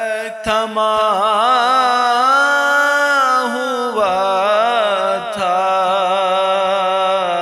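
Solo voice singing a naat, an Urdu devotional poem, in long ornamented held notes over a steady low drone, with short pauses about half a second in and again about four seconds in.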